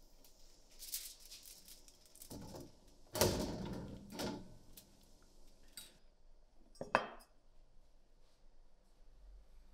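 Metal rifle parts and a stainless-steel tray being handled: a few scattered clinks and knocks, the loudest about three seconds in and another sharp one about seven seconds in.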